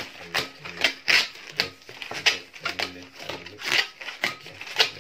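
Long latex modelling balloons being twisted and handled, the rubber squeaking and rubbing in sharp irregular bits about twice a second.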